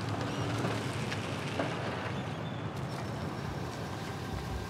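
A vehicle towing a boat trailer rolling past slowly across pavement: steady low engine and tyre noise that eases off slightly near the end.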